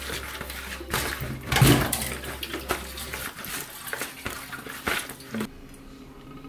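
Wet squishing and scraping of raw lionfish pieces being mixed by hand with salt and black pepper in a plastic bowl, in irregular bursts. It stops suddenly about five and a half seconds in.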